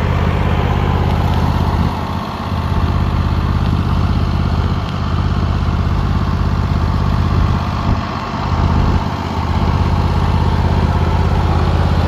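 Engine of a Hustler 52-inch zero-turn riding mower running steadily, its level dipping briefly a few times.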